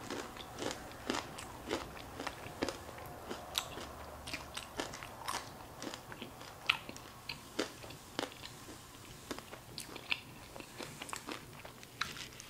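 Close-up chewing and crunching of crispy fried crab rangoons, with irregular sharp crunches and wet mouth clicks, and a fresh bite near the end.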